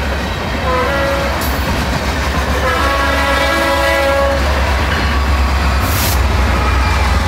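Norfolk Southern diesel freight locomotives sounding a multi-tone air horn for the grade crossing as they approach. The horn stops about four and a half seconds in, leaving the deep rumble of the engines and the freight cars rolling past, with a short hiss about six seconds in.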